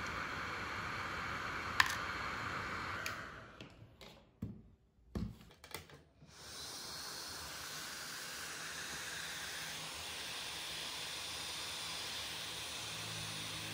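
Steady rushing hiss of air from a homemade hot air gun built from a soldering iron's heating element and a 24 V blower fan. There is a sharp click just under two seconds in, then the hiss fades out for a few seconds with a couple of soft knocks, and comes back steady.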